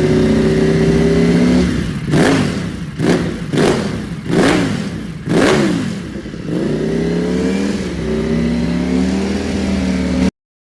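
Yamaha NMAX 155 scooter's single-cylinder engine through a JVT Power Pipe V3 aftermarket exhaust, idling, then revved in about five quick throttle blips before settling back to idle. The sound cuts off suddenly near the end.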